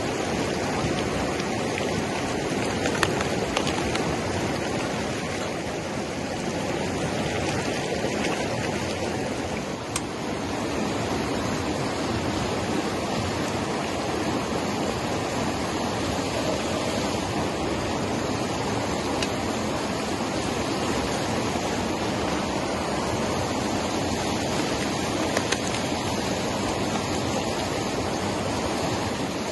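River rapids rushing over rocks: a steady, unbroken rush of whitewater.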